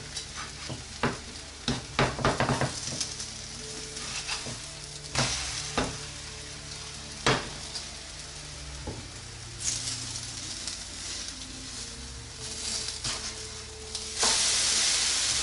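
Oatmeal pancakes sizzling in hot frying pans, with a black plastic spatula clicking and scraping against the pan, most often in the first few seconds. About fourteen seconds in, the sizzle turns much louder as something goes into the hot right-hand pan.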